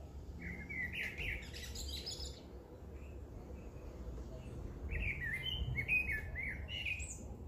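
Bird song: two runs of quick chirps, one about half a second in and another from about five seconds in, over a steady low hum.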